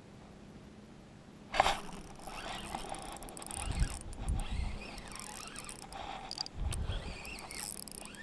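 Wading through shallow water: water sloshing around the legs with dull thumps of the steps. A sharp knock about one and a half seconds in.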